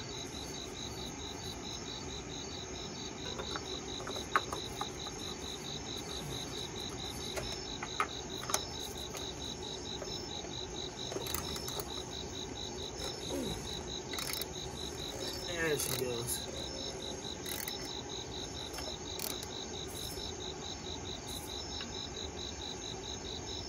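Insects chirping steadily in fast, even pulses. Over this come a few sharp clicks and short creaks as a cap-type filter wrench on an extension bar loosens the plastic oil filter housing.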